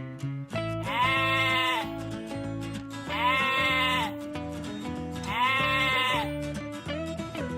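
Sheep bleating three times, each bleat about a second long, over background music.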